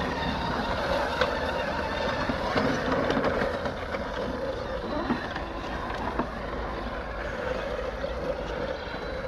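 Traxxas X-Maxx RC truck's electric motor running with a steady whine as it pushes a reel mower through grass, the reel whirring as it cuts, with a few sharp clicks.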